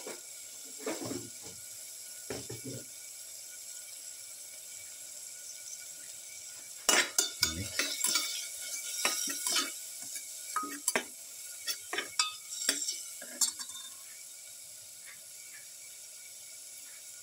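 A perforated metal spatula stirring and scraping against a metal pot, mixing spices into a frying tomato-onion masala: a busy run of clanks and scrapes from about seven seconds in to about fourteen, over a faint sizzle.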